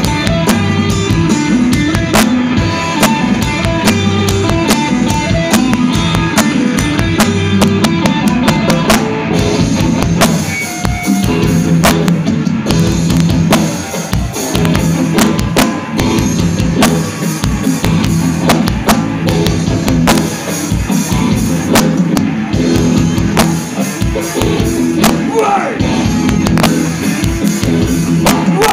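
Live rock band playing electric guitars, bass guitar and drum kit, loud and dense, with frequent drum hits.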